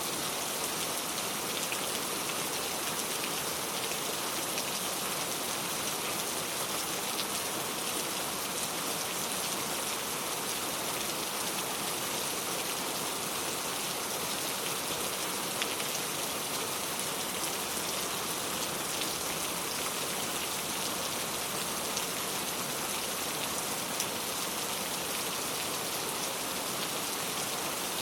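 Steady rain falling, with many small drops pattering on a surface and a few sharper drips standing out here and there.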